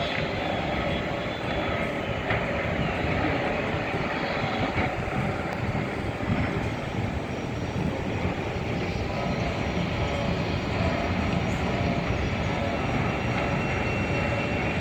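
Steady outdoor rumble with no clear single source, heaviest in the low range and unbroken throughout.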